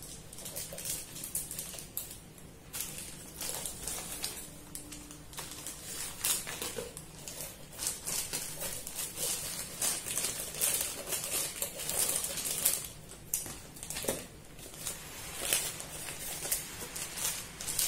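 Plastic courier mailer crinkling and rustling as it is cut open with scissors and pulled apart by hand, in a run of irregular sharp crackles that grows busier after the first few seconds.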